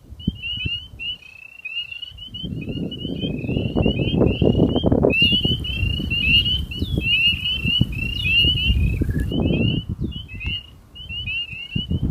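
Bird chirping rapidly and without a break: short high chirps, several a second, some sweeping up or down. Underneath is a louder, uneven low rumble.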